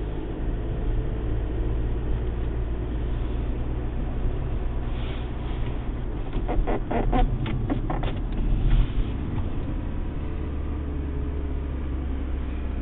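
Opel Insignia gear knob squeaking, a quick run of short squeaks about halfway through, over the steady low rumble of the car.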